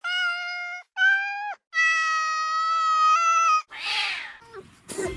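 Cat meowing three times in long, drawn-out, steady-pitched calls, the third the longest, followed near the end by a short breathy puff of noise.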